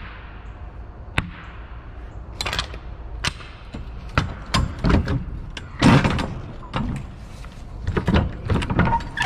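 Metal clanks and knocks from a semi-trailer's rear swing-door hardware as the lock-rod handle is worked and the door unlatched, a string of sharp irregular hits.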